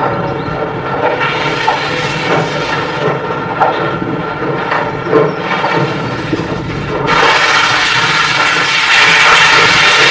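Steam locomotive getting its passenger train under way, with slow, uneven exhaust chuffs over a steady hiss of steam. About seven seconds in, the sound turns abruptly louder and brighter and stays at a steady level.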